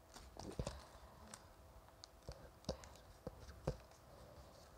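Origami paper crinkling and crackling as hands fold and press down its creases, a handful of faint, short crackles spread through the few seconds.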